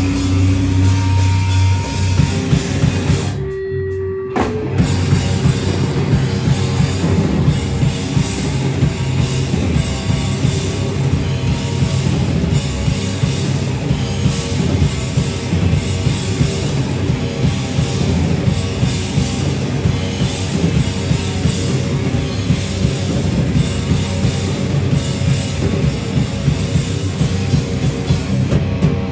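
Live heavy rock band playing loud, distorted guitars and drum kit. A held chord breaks off briefly about four seconds in, then the full band comes back in with fast, dense drumming.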